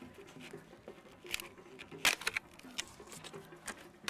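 Faint background voices under light hiss, broken by scattered sharp clicks and rustles. The loudest click comes about two seconds in.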